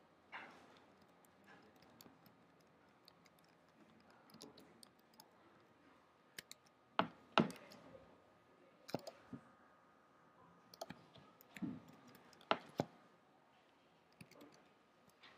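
Irregular, scattered clicks of a computer keyboard and mouse, a dozen or so sharp clicks with the loudest a pair about halfway through.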